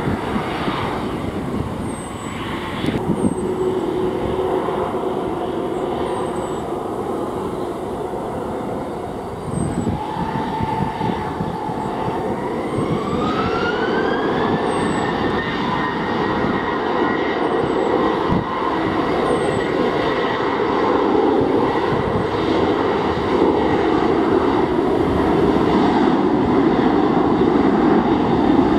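Boeing 737-800's CFM56 jet engines spooling up: a whine rises in pitch from about ten seconds in, then holds steady while the engine noise slowly grows louder as the airliner begins to roll down the runway.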